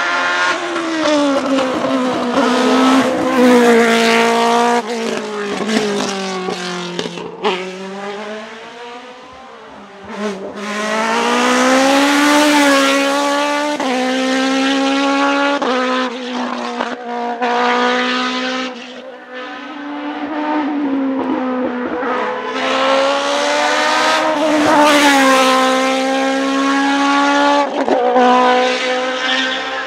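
Suzuki Hayabusa inline-four motorcycle engine in a Gloria C8P Evo race prototype, revving hard as the car climbs past. The pitch rises and falls again and again through gearshifts and lifts off the throttle, and the engine fades out briefly twice between passes.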